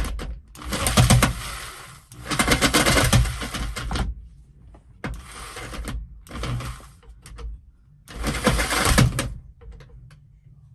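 Jigsaw with a longer blade cutting in about five short bursts of one to two seconds each, stopping and starting between them.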